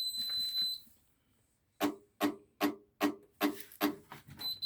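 Indesit Innex washing machine powering up: a steady high electronic beep, then a run of about seven sharp ringing clicks over two seconds, then a short broken beep near the end. The machine does not accept the start; its door is bent out of shape and the lock strikes the wrong place.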